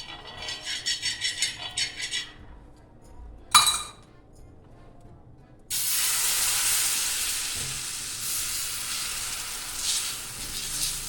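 A ladle stirs adai batter in a steel bowl with quick, even clinks, followed by one sharp knock. A little past halfway, the batter poured onto the hot pan starts sizzling suddenly and keeps sizzling steadily.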